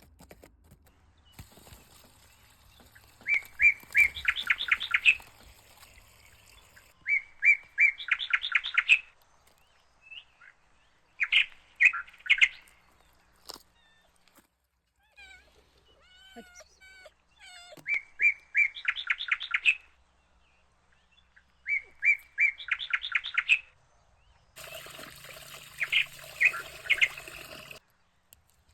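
A bird singing the same short phrase over and over: a quick run of notes that speeds up, repeated about every four seconds, with a few short chirps in between.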